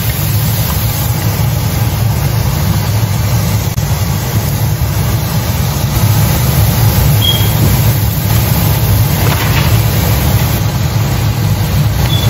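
Loud, steady low mechanical rumble with a hiss over it, running without a break.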